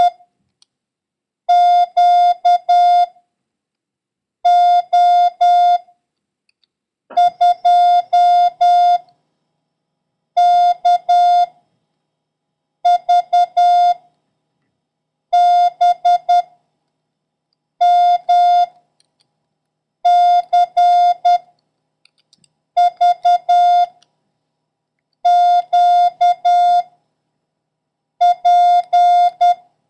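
Morse code practice tone: a single steady beep keyed into dots and dashes, sending random letters and numbers one character at a time with a pause of about a second between characters, for copying by ear.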